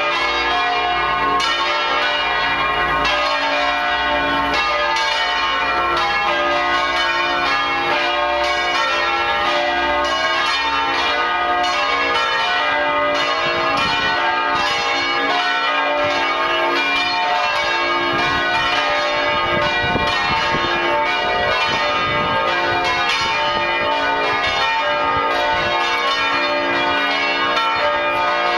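A peal of five swinging bronze church bells, tuned D–F–G–A–C and electrically rung in the Bolognese style, in a solemn doppio: dense, overlapping strokes that ring on continuously.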